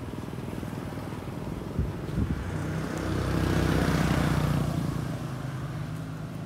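A vehicle engine running steadily, growing louder around the middle and then easing off again, with two short knocks about two seconds in.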